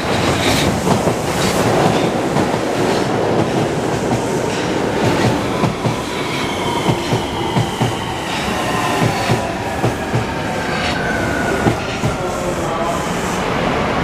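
Osaka Metro Chuo Line train running on the rails, its wheels clacking over the rail joints. From about halfway through, a whine slides down in pitch.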